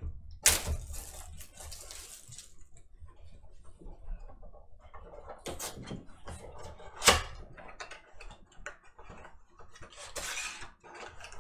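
A cardboard trading-card blaster box being cut open with a knife and handled: scrapes, rustles and clicks, with two sharp snaps, one about half a second in and one about seven seconds in.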